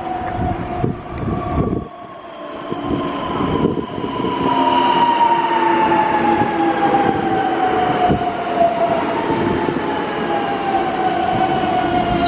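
Newag Impuls 2 electric multiple unit pulling into a station and braking, its traction motors whining in a tone that falls steadily in pitch as the train slows.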